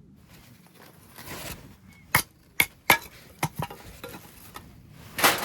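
Camp tableware being handled: a string of about five sharp clinks and knocks over two seconds, then a short, louder rustling clatter near the end.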